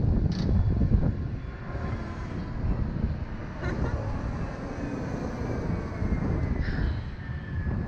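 Wind buffeting the microphone of a selfie camera on a swinging Starflyer chair ride, a steady low rumble. A faint whine slowly falls in pitch through the second half.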